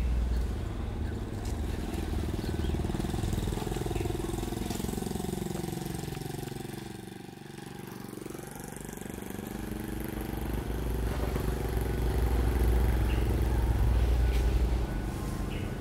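Motor vehicle engine noise: a deep rumble whose pitch falls and fades to a low point about halfway through, then rises and grows louder again.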